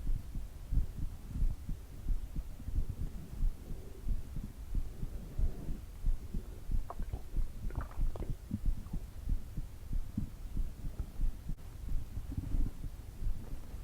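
Human heartbeat: a steady, even rhythm of low, muffled thumps.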